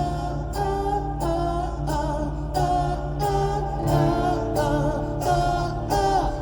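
Live band playing a hard-rock song with wordless sung vocals over the riff and steady beat, heard through a phone's microphone in a concert hall.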